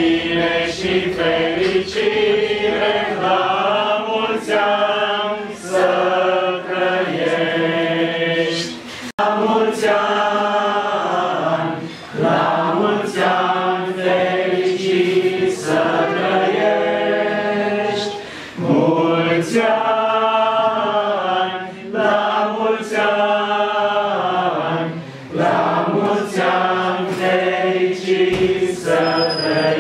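A roomful of men and women singing a hymn together, in phrases of held notes with short breaks for breath between them.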